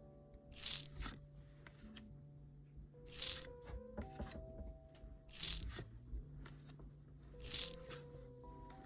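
Trading cards from a freshly opened booster pack being flicked over one at a time, a sharp papery snap four times at a slightly uneven pace, over soft background music.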